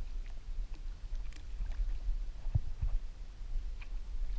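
Water slapping around a fishing kayak's hull, heard as a steady low rumble on the kayak-mounted camera, with scattered faint ticks and two soft low knocks a little past halfway.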